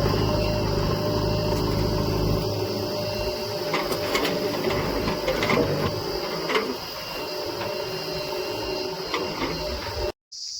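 Heavy vehicle's diesel engine running steadily with clicks and knocks of working machinery. The low engine hum weakens about two to three seconds in, and the sound cuts out for a moment near the end.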